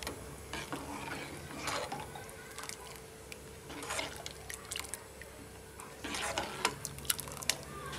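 Thick sambar (lentil and vegetable stew) simmering in a pot, with soft bubbles bursting now and then, a few seconds apart.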